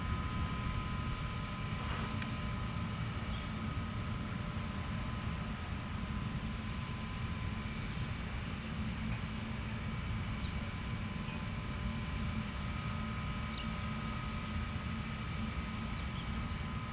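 Steady hum of factory machinery: a constant low rumble with a few faint, unchanging whining tones above it.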